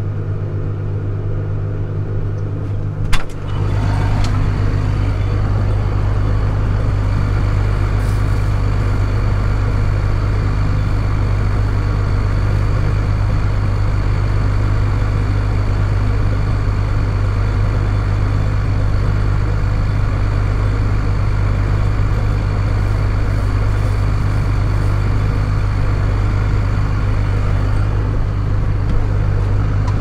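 Tractor engine idling steadily, heard from inside the cab. A sharp click comes about three seconds in, after which the engine is louder, with a faint high whine over it.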